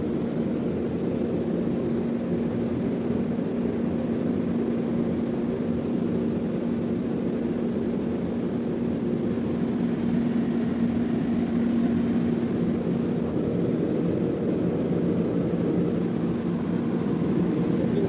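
Air-conditioning unit running: a steady mechanical hum with a constant low drone and fan noise, unchanging throughout.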